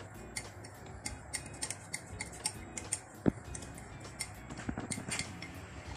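Light glassy ticks and taps, about three a second, with one sharper knock a little past the middle: a glass tumbler knocking against a glass blender jar as powdered chocolate malt drink is shaken out of it.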